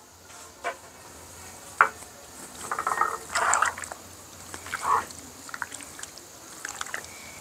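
Hands squishing and mixing chicken pieces in a wet yogurt-and-cream marinade in a bowl, in a few short wet bursts with some light clicks.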